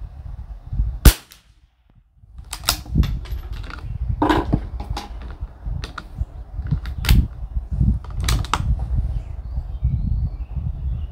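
A single sharp crack of a .22 LR Anschutz 1761 bolt-action rifle firing a round of SK Standard Plus about a second in. Several sharp clicks and knocks follow as the rifle is handled for the next shot.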